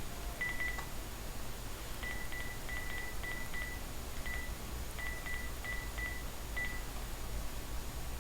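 Phone keypad beeps as a number is dialed: about a dozen short beeps of the same pitch, each with a light key click. They come one at a time and in quick runs, with a pause about four seconds in.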